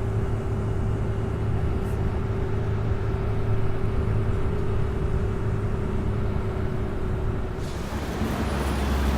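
Steady low hum of a running vehicle with a held tone above it. About seven and a half seconds in the tone stops and a rougher, noisier rumble takes over.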